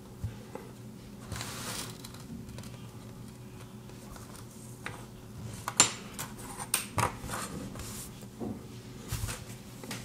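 Fingers peeling and crinkling the thin plastic protective film off a thermal pad: soft rustling with several sharp clicks and crackles, the loudest about six and seven seconds in.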